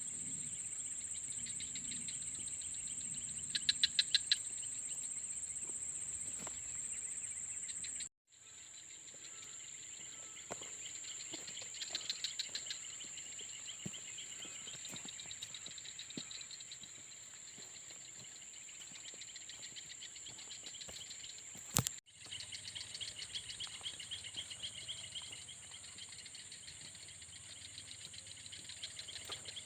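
Night insects chirring: a steady high-pitched trill, with quicker pulsed chirping beneath it. The sound drops out briefly twice.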